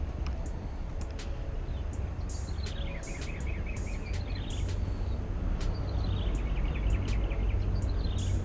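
A bird calling a descending run of quick notes, twice, over a steady low rumble, with scattered faint clicks.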